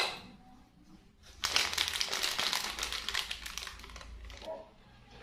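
Plastic packaging crinkling and rustling in a dense crackle for about two and a half seconds, starting about a second and a half in, after a brief knock at the very start.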